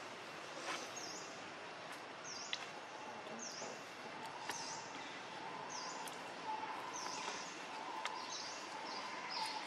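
Outdoor ambience: a bird repeating a short high chirp about once a second over a steady background hiss.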